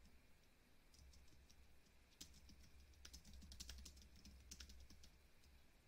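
Faint keystrokes on a computer keyboard, typed in quick irregular runs over a low steady hum.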